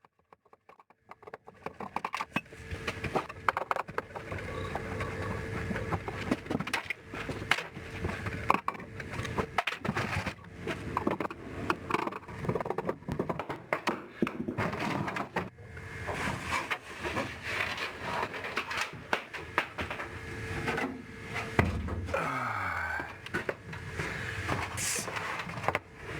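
Irregular knocking, clicking and scraping of a CRT television's housing being worked on with hands and tools, with a faint steady tone underneath.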